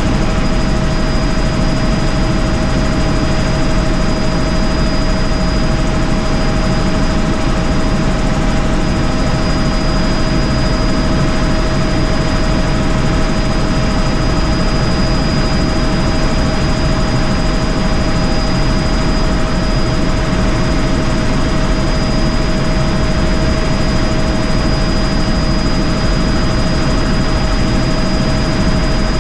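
Helicopter in steady flight, heard from inside the cabin: a constant loud din of rotor and engine with a steady high whine over it.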